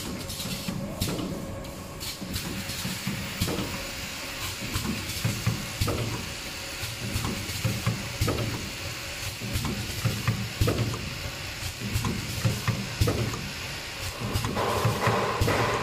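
Automatic alcohol prep pad making machine running: a steady mechanical clatter and hiss, with regular knocks from its sealing and cutting stations as they cycle.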